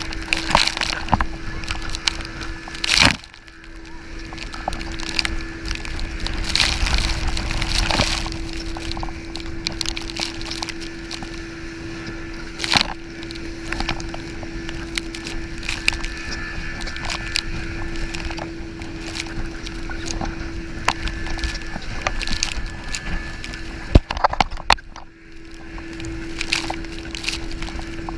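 Wind and sea spray rushing over a chest-mounted action camera on a banana boat towed at speed. A steady engine hum runs underneath, with frequent sharp knocks and splashes of water hitting the camera, the loudest about 24 seconds in.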